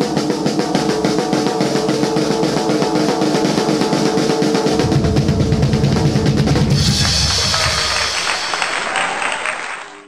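Fast, loud, drum-heavy music with a driving beat over pitched instruments. A heavy bass comes in about halfway, and the music thins out and fades near the end.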